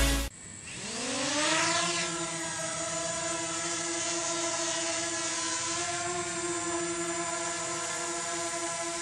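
DJI Mavic Mini drone's propellers spinning up with a rising whine, then holding a steady whine as the drone takes off.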